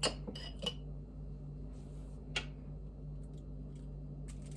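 A spoon clinking lightly against dishes as pizza sauce is spooned and spread: a few quick clinks at the start, another about two seconds in and faint ticks near the end, over a steady low hum.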